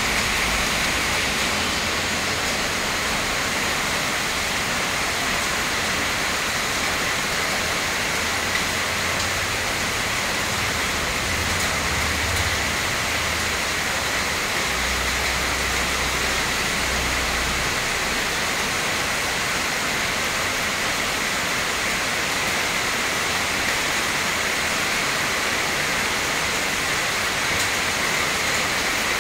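Heavy tropical rain pouring steadily onto trees, foliage and wet ground, an even dense hiss that never lets up. A low rumble comes and goes underneath during the first half.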